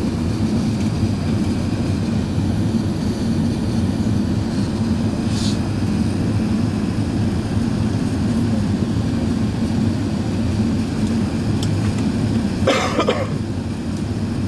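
Steady low roar inside the passenger cabin of an Airbus A380 airliner in descent: engine and airflow noise. About 13 seconds in, a short burst of sound from a person's voice rises briefly above it.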